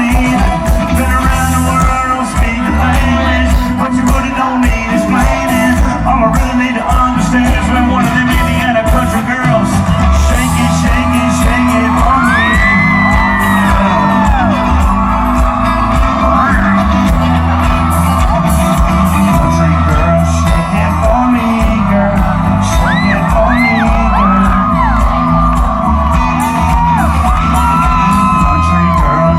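Background music with a singing voice over a steady beat.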